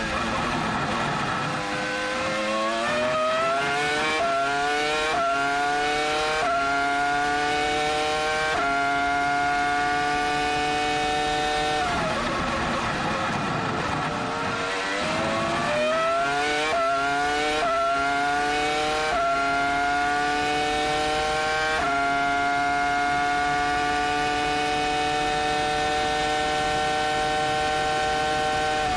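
2004 Williams-BMW Formula One car's 3.0-litre BMW V10 at racing speed: the revs fall as it brakes and downshifts, then climb in quick steps up through the gears. It brakes and downshifts again about twelve seconds in and climbs back up through the gears, then holds at high revs flat out for the last several seconds.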